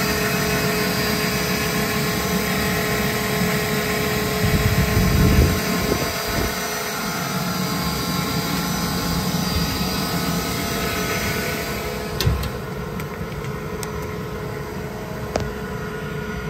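Kaeser ASD 50 T SFC inverter-driven rotary screw air compressor running under load with its service panels open: a steady machine hum with several steady whining tones over an airy rush. A knock about twelve seconds in, after which it is a little quieter.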